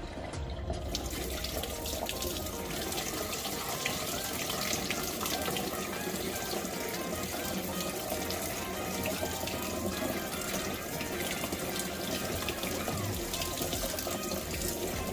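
Water running steadily from a tap, over background music.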